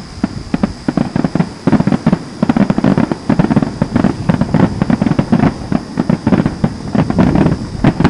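Fireworks finale: a rapid barrage of overlapping bangs and booms that grows denser about a second and a half in.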